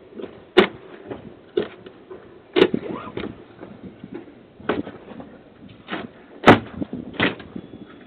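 Sharp knocks and clatters from a front door being forced at its handle and lock, about seven strikes spread irregularly, the loudest about six and a half seconds in.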